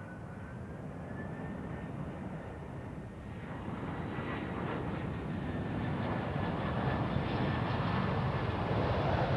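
Four-engined Airbus A340-300 airliner on final approach with its landing gear down. Its CFM56 jet engines run with a steady high whine over a rushing noise that grows steadily louder as it nears.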